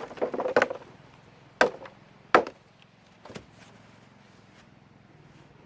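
Rustling handling noise, then three sharp knocks about a second apart, the first two loudest.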